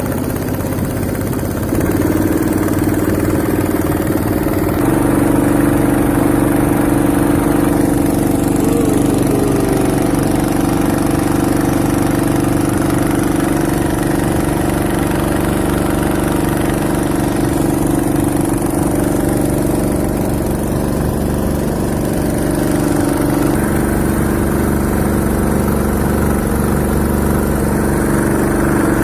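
A boat's engine running steadily and loudly close by. Its speed steps up about two seconds in and again a few seconds later, then drops a little near the end.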